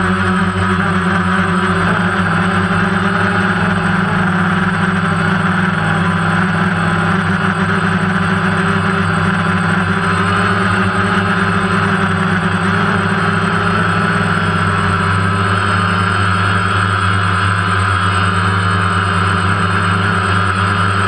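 A multirotor drone's electric motors and propellers running steadily at a constant pitch, heard close up through the camera it carries.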